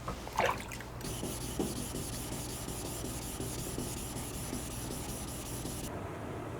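Knife blade being stroked across a Naniwa 800 grit whetstone, a steady scraping of steel on stone while the edge is refined, stopping about six seconds in.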